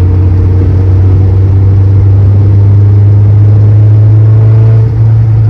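Car engine and exhaust droning inside a moving car, loud and steady, its pitch rising slowly as the car gathers speed, with a brief dip near the end.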